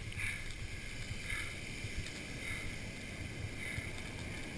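Surf and whitewater heard through a GoPro camera's waterproof housing: a muffled, steady low rumble.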